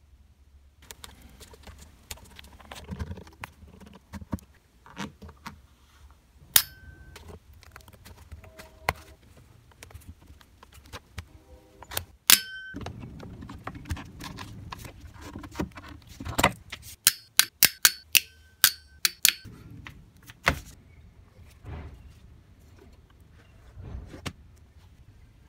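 A flat metal hand tool prying at the fastened edge of an old seat cover, making sharp metallic clicks and pings. Several of them ring briefly, and there is a quick run of them about three-quarters of the way through.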